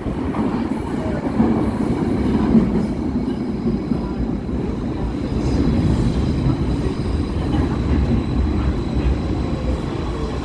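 Vienna U-Bahn SGP Type U2 metro train, rebuilt from a Type U, pulling into an underground station platform and slowing to a stop. The wheels and running gear make a steady low rumble throughout.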